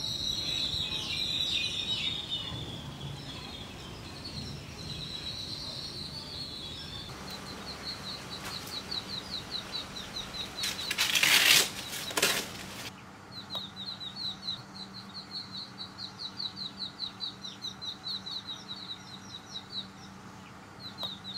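Small birds chirping in quick repeated runs of short high notes, with a loud rustling burst a little over halfway through.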